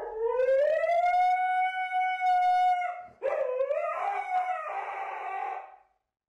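Husky howling twice: a long call that rises and then holds one note for about three seconds, then a shorter, wavering howl.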